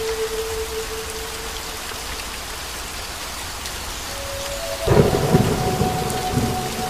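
Heavy rain falling steadily on a paved lane and roofs, a constant hiss. About five seconds in, a sudden loud rumble of thunder breaks in over the rain.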